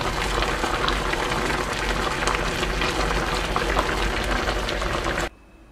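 A pan of braised kimchi and pork belly stew simmering: a steady bubbling with many small pops. It cuts off abruptly near the end.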